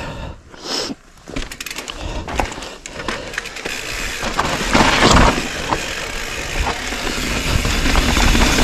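Mountain bike rolling down a dry, stony dirt trail. Scattered clicks and crunches of the tyres on loose rock come first, then a rising rush of rolling noise as the bike picks up speed, loudest about five seconds in.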